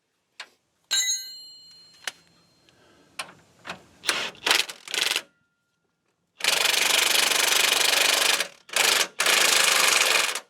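A metal part rings out after a knock about a second in. Then an impact wrench runs in three short bursts and two long runs of about two seconds and a second and a half, tightening a nut down.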